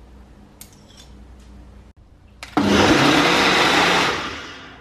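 A few light clinks of metal spoons against a blender cup, then a personal blender starts suddenly and runs loudly and steadily for about a second and a half, blending bananas, jam, peanut butter and milk into a milkshake, before winding down.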